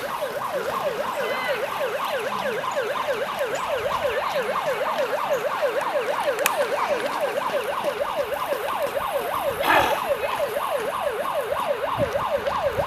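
A siren sounding in a fast, even yelp, sweeping down and up about four times a second without a break. A short noisy burst cuts across it about ten seconds in.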